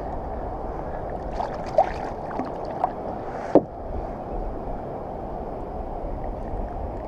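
Water splashing as a rockfish is pulled up out of the sea beside a kayak, with a few short squeaks, the last and loudest falling in pitch about three and a half seconds in. Steady wind and water noise underneath.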